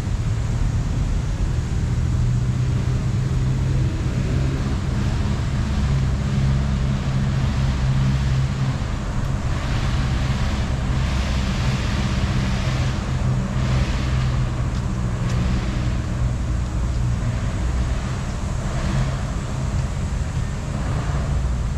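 Road traffic: a steady low engine hum from vehicles, with passing vehicles swelling and fading several times between about ten and sixteen seconds in.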